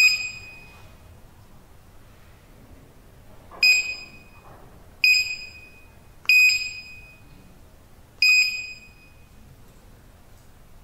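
TIVDIO access-control keypad's built-in buzzer giving short high beeps, one per key press: five single beeps at uneven intervals, each fading within about half a second.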